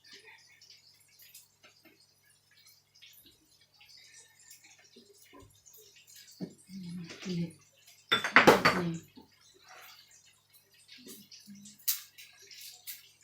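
Kitchen prep sounds while seasonings are added: small clicks and knocks of containers and utensils, with drips of sauce. A louder, noisy splatter comes about eight seconds in.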